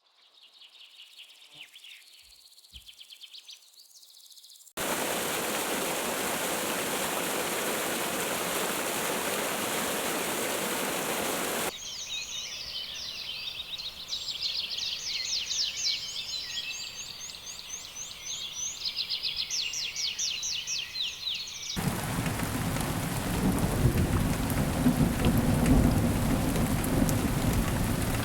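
A series of nature recordings joined with hard cuts. It opens with faint bird chirps. About five seconds in, steady rain hiss cuts in abruptly. From about twelve seconds, rapid high birdsong chirping takes over. From about twenty-two seconds, heavy rain with a low rumble of thunder plays.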